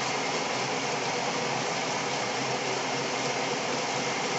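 Lathe running steadily while the cutting tool is fed along the turning workpiece in a step-turning cut, giving an even mechanical hum and noise with faint steady tones.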